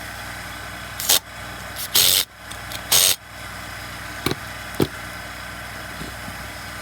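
Workbench handling noises while reassembling a chainsaw: three short scraping or rustling bursts, the middle one the longest, then two light knocks, over a steady background hum.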